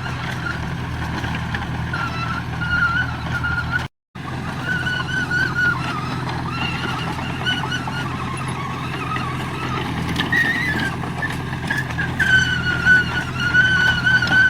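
Heavy diesel earthmoving machinery running steadily, with a wavering high-pitched whine over the engine. The sound cuts out for a moment about four seconds in.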